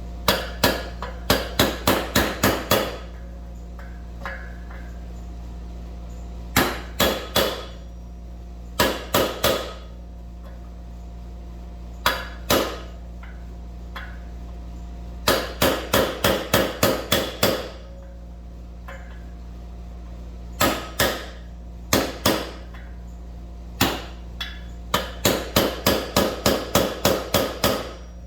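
A hammer strikes a socket used as a driver, pressing a new wheel bearing into a motorcycle front hub. The blows come in quick runs of several strikes, with short pauses and single or paired taps between; the bearing is not yet fully seated. A steady hum from an air conditioner runs underneath.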